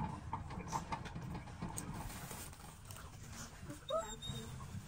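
Plastic hamster exercise wheel spinning under a running dwarf hamster: a steady low rumble with light, rapid pattering clicks of its feet and the wheel. About four seconds in, a brief chirp-like call cuts in.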